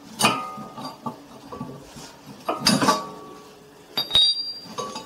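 Metal clinking and knocking as a steel screw clamp used to push back the piston is worked loose and pulled out of a rear brake caliper: three main sharp clinks with brief ringing, and lighter knocks between them.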